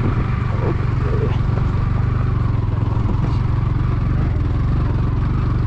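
Yamaha MT motorcycle engine pulling steadily in a low gear up a steep, rocky climb with two riders aboard, its note holding even. The tyres are slipping a little on the loose stones.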